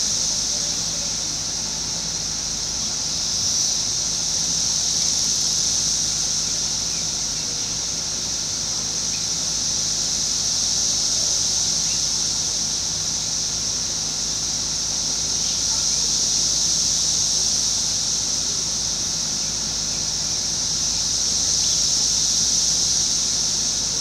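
Chorus of Brood X periodical cicadas (17-year cicadas): a continuous high-pitched buzzing drone from many insects, swelling and easing slowly every few seconds.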